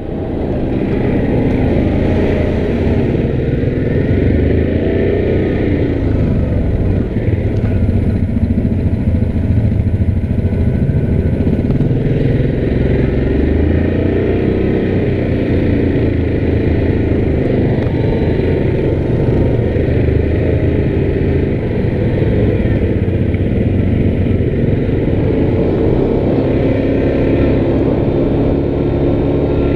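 Yamaha Grizzly 700 ATV's single-cylinder engine running at a steady trail-riding throttle, with small rises and dips in engine speed.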